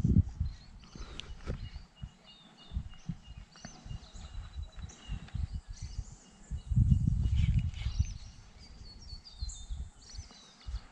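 Wind buffeting the microphone in uneven gusts, strongest at the start and again about seven seconds in, while small birds chirp and call in the surrounding bush.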